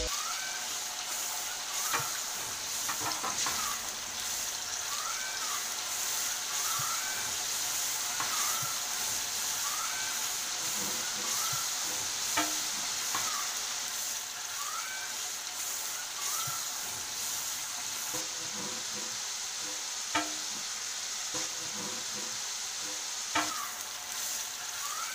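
Onion paste frying in hot oil in a karahi: a steady sizzle and crackle, with a few sharp clicks.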